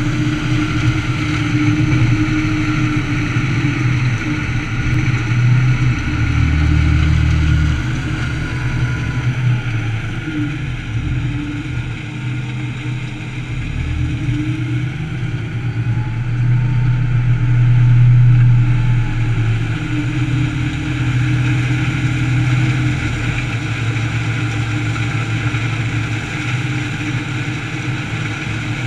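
Heavy diesel machinery running: a wheel loader's engine close by and a 540 hp Bandit Beast 3680 horizontal grinder grinding sawmill offcuts into chips. A steady deep drone that swells louder twice, about a quarter of the way in and just past the middle.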